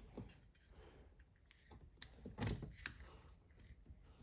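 Light metallic clicks and scrapes of an inverter cable end being worked against a lead-acid car battery terminal, with a couple of louder clicks about halfway through.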